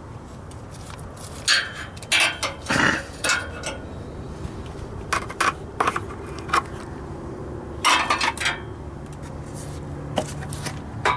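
Metal clinking and scraping in irregular bursts as an automatic transmission's filter is pulled and yanked loose by hand, over a steady low hum.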